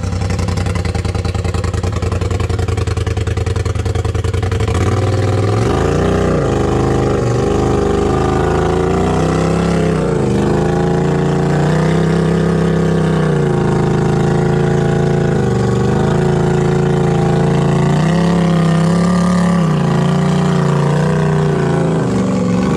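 Rock-crawler buggy's engine under load on a steep rock climb. It holds a steady low drone at first, then revs up and down repeatedly from about five seconds in as the driver works the throttle.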